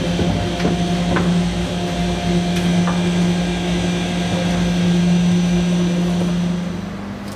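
Seydelmann AU 200 U universal grinder running, a steady electric-motor hum with a few sharp knocks in the first three seconds. About seven seconds in, the sound gets quieter and the hum shifts slightly higher.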